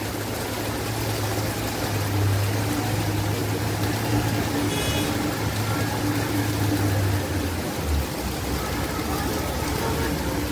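Steady noise of heavy rain over a flooded street, with a low steady hum that stops about eight seconds in and faint indistinct voices.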